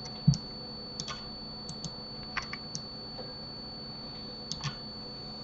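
Irregular clicks of a computer keyboard and mouse being worked, about a dozen in all, with one louder knock about a third of a second in. A faint steady high whine and hum runs underneath.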